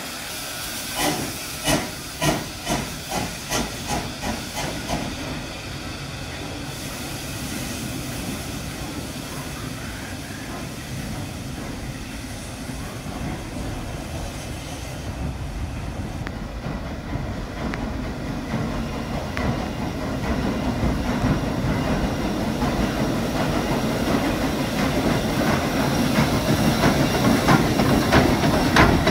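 Steam locomotive 'Princess', an 0-6-0 tank engine, with an even beat of about two chuffs a second that fades away within the first five seconds. Then a steady hiss of steam grows louder as the engine draws close.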